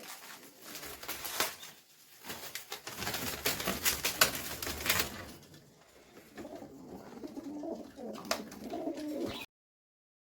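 Pigeons cooing, with a louder stretch of rustling and clicking in the middle; the sound cuts off suddenly near the end.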